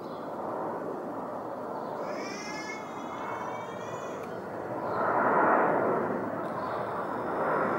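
Boeing 737 jet airliner passing overhead on approach, a steady rushing engine noise that swells to its loudest about five seconds in. A few high, wavering calls sound over it about two seconds in.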